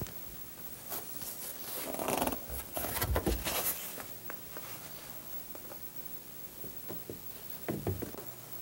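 Rustling and rubbing handling sounds with a few light knocks as white cloth and a stiff white board are moved on a plywood model box. The board is slid onto the top as a ceiling. The sounds are busiest a second or so in and again near the end.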